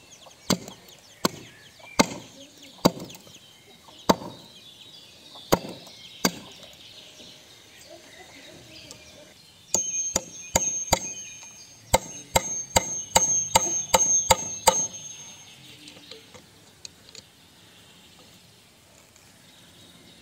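Hatchet chopping a wooden stake against a plank, single blows a second or so apart for the first six seconds. About ten seconds in, a claw hammer drives a nail into a log: a quick run of strikes with a high metallic ring that lasts about five seconds.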